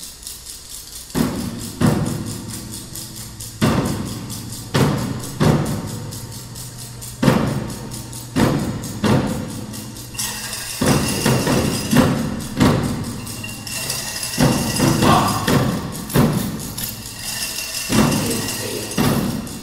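Choral percussion section: uneven percussion hits about once a second, each ringing on in the hall, joined about ten seconds in by a steady high rattle like a tambourine or shaker.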